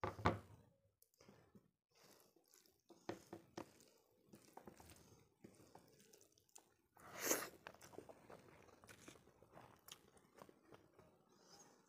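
Close-miked eating sounds: a glass bowl set down on the table with a knock at the start, then fingers squishing and mixing rice with dal, small wet clicks and eating noises, with one louder noise about seven seconds in.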